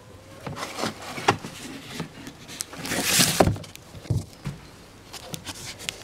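Cardboard swarm trap being handled: rustling and scraping of the cardboard with a few light knocks, loudest a half-second scrape about three seconds in.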